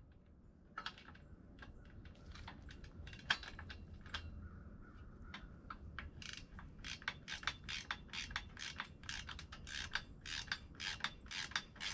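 Metal wrenches clicking on a bolt and nut as a wheel is bolted onto a steel miter saw stand. Scattered clicks at first, then a quick, steady run of about three clicks a second from about halfway in, as the nut is turned.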